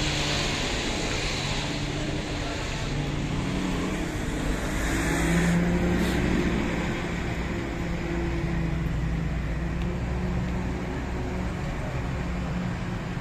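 Road traffic on a busy city boulevard: car engines running steadily, with a louder swell about five seconds in as a vehicle passes close.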